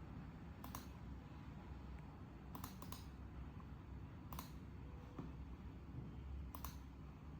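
Faint, sharp computer clicks while a network-adapter setting is changed on a laptop: a click about a second in, a quick run of three near the three-second mark, then two more spaced clicks, over a low steady hum.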